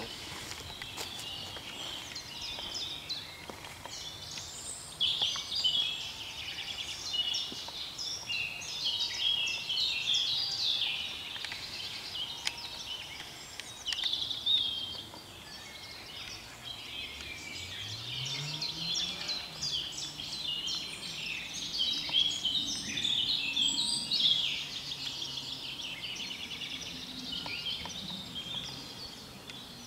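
Woodland songbirds singing in a dense, continuous chorus of overlapping trills and chirps. About halfway through, a faint low engine drone comes in, rising in pitch and then holding steady beneath the birds.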